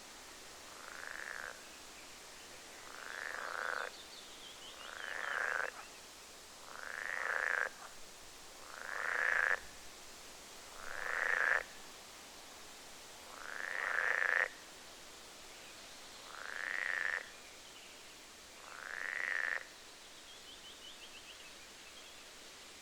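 A frog croaking nine times, about every two seconds, each call swelling louder and then cutting off abruptly, over a steady hiss of wind in trees.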